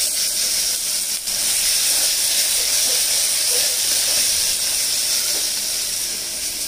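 Sliced onions, green chillies and curry leaves frying in hot oil in an aluminium pressure cooker, a steady sizzling hiss as they are stirred with a wooden spatula. The onions have fried to golden brown.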